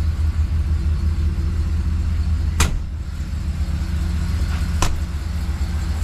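A steady low engine hum, with two sharp clicks, about two and a half and five seconds in, of storage-compartment doors and latches being opened.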